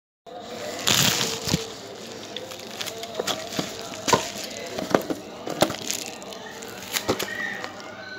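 Unboxing handling sounds: scattered clicks, taps and rustles as a lavalier microphone's cable and jack plug are pulled out of a plastic packing tray and set down in a cardboard box. The sound starts abruptly about a quarter second in, over a faint steady hum.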